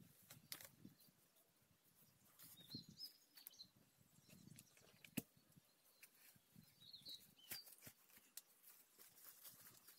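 Near silence with faint bird chirps, about three seconds in and again about seven seconds in, and scattered light clicks and knocks.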